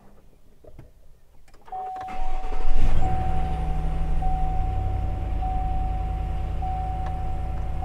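Pickup truck engine cranking and starting about two seconds in, briefly revving up and then settling to a steady idle. A dash warning chime sounds as a steady tone repeating about once a second over it.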